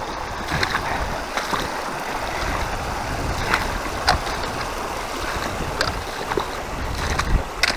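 Creek water rushing, with occasional splashes and knocks as hiking boots wade through the water over rocks.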